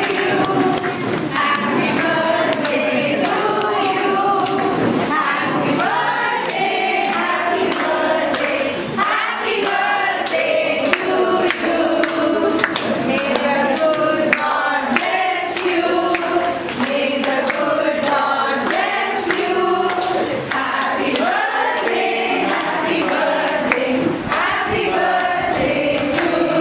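A group of voices singing together in chorus, accompanied by clapping.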